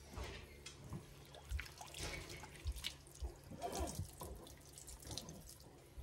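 Kitchen tap running into a sink while cleaned razor clam meat is rinsed, with small knocks and splashes.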